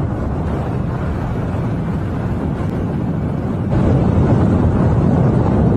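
Wind rushing over the microphone of a camera carried on a flying eagle's back: a steady, deep rushing noise that gets louder about two-thirds of the way in.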